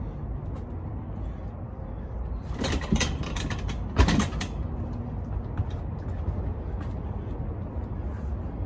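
Strikes landing on a hanging heavy punching bag: a few lighter hits about two and a half to three seconds in, then one hard hit about four seconds in, the loudest sound. A steady low rumble runs underneath.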